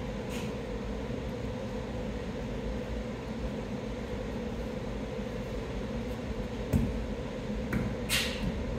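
Steady hum and rumble of a large room's ventilation system. Near the end come a few light knocks and a brief scuff.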